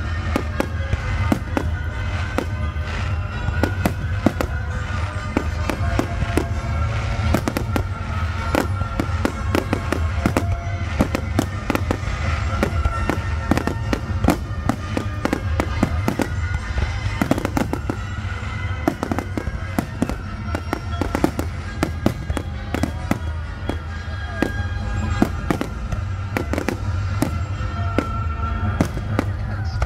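Fireworks display: aerial shells bursting in quick succession, dozens of sharp bangs and crackles over a low rumble, with music playing throughout.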